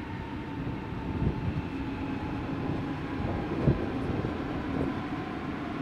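Munich S-Bahn electric commuter train rolling past: a steady rumble with a low electric hum, and two sharp knocks, about a second in and near the middle, the second one the loudest.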